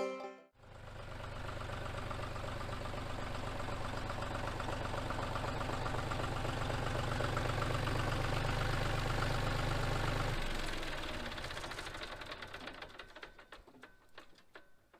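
A motor-vehicle engine running steadily, growing slightly louder, then shut off about ten seconds in, with the remaining noise dying away over the next few seconds.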